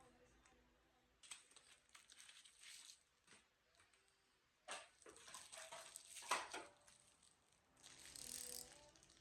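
Faint rustling and small clicks of objects being handled, in three short spells.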